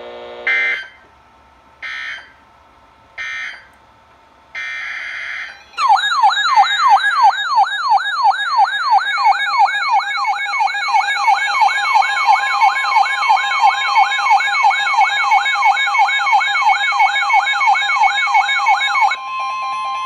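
Weather radio alert sequence: three short bursts of screechy digital data tones (the EAS/SAME end-of-message code), then a longer data burst. Then the receiver's loud electronic warbling siren alarm goes off, sweeping up and down about three times a second, for a tornado warning. Near the end the siren stops, leaving a steady single tone, the NWS warning alert tone.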